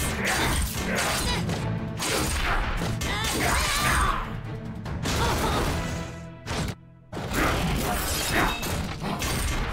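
Action cartoon soundtrack: dramatic music mixed with metallic mechanical clanks and crashes of fighting robots. It drops away briefly about two-thirds of the way through, then comes back in.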